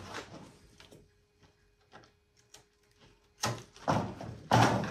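Scissors cutting through a strip of sticky-backed hook-side Velcro: three noisy snips in the last second and a half, after a quiet stretch with a few small handling clicks.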